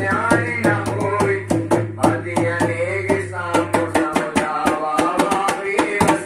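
Hindu devotional song (bhajan) sung by a male voice through a microphone, with a dholak drum playing a quick steady beat. A low electrical hum runs underneath and stops about four seconds in.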